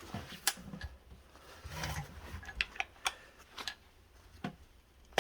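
Irregular light clicks and taps of small metal tools and rivet-gun parts being handled, with a few soft knocks.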